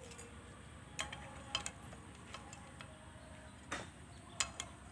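A handful of light, sharp metallic clinks and taps, about six, scattered irregularly, as of small hard metal objects knocking together.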